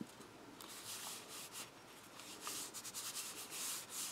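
Hands rubbing and pressing a glued paper panel to stick it down: a run of faint, scratchy paper strokes that grow a little louder toward the end.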